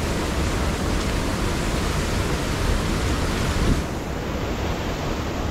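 Steady rushing noise with no clear events, which turns duller about four seconds in.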